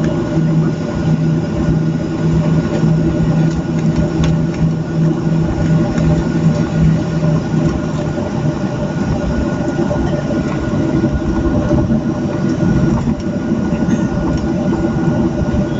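Cabin noise of a Boeing 737-700 taxiing: a steady jet-engine hum with several held tones over a low rumble from the wheels. The deepest drone in the hum weakens about halfway through.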